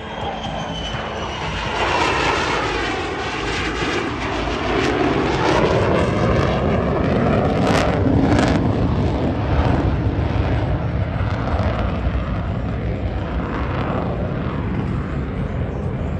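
Jet noise from an F-35A Lightning II's single F135 turbofan as the fighter flies past and pulls up. A whine falls in pitch over the first few seconds, then a steady, loud, heavy rumble carries on.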